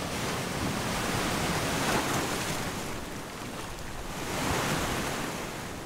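Ocean surf breaking and washing up the beach: a steady rush of water that swells twice, about two seconds in and again about four and a half seconds in.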